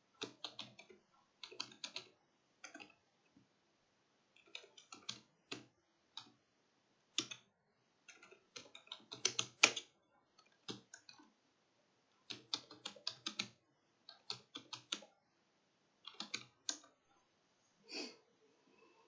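Computer keyboard typing: keys clicking in quick bursts separated by short pauses while a long command is entered, then one separate key press near the end.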